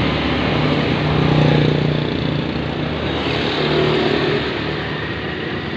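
Small engine of a home-built motorized bicycle running with a steady low hum, briefly louder about a second and a half in.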